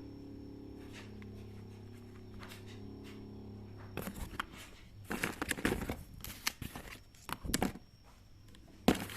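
A steady low hum for about four seconds, then irregular crinkling and rustling, like plastic being handled, with sharp crackles.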